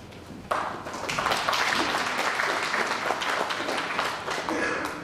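Audience applauding, the clapping starting abruptly about half a second in and fading out near the end.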